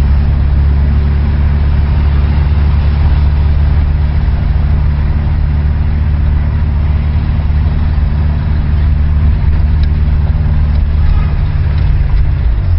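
Steady low rumble of a car engine running at low speed, heard from inside the car's cabin in slow traffic.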